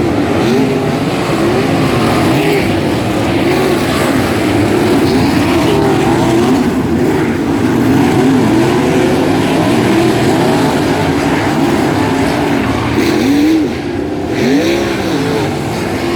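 A field of 360 sprint cars' V8 engines running at racing speed, their engine notes rising and falling over and over as cars power through the turns and pass, several engines heard at once. The sound drops briefly about three-quarters of the way through, then picks up again.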